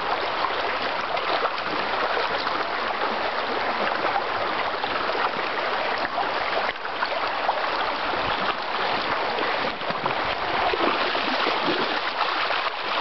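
Shallow river water rushing over stones: a steady, even rush of flowing water.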